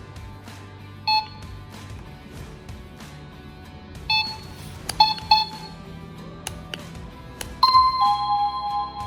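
Wireless doorbell receiver giving several short electronic beeps, then near the end a two-note electronic ding-dong chime, a higher note falling to a lower one, over background music.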